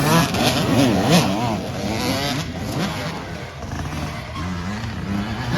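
Dirt bike engines revving, their pitch rising and falling as the throttle opens and closes, with more than one bike running at once.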